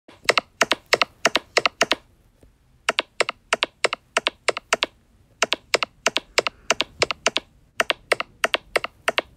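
Footstep sound effects: quick, hard-soled steps in runs of six or seven, about three to four a second, with short pauses between the runs.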